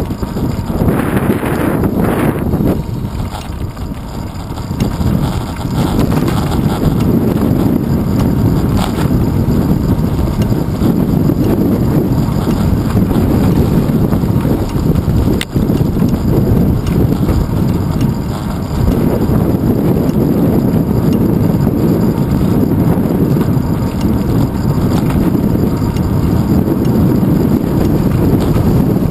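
Wind buffeting and road rumble picked up by a handlebar-mounted GoPro Hero 2 on a moving bicycle: a steady low rushing noise that eases off briefly a few seconds in and again past halfway.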